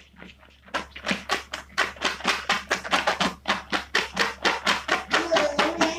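A spoon stirring a slime mix of glue and shaving foam in a bowl: a fast, even run of tapping strokes, about five or six a second, starting about a second in.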